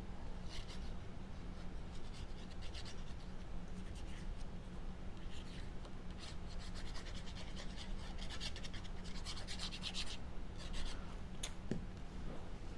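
Cut cardstock pieces being handled and slid against each other and the work surface: intermittent soft rubbing and scratching, with one light click near the end.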